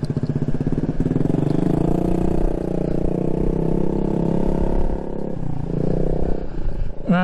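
Motor scooter engine pulling away and running at a steady note as it gets under way, easing off about five seconds in and then picking up briefly again.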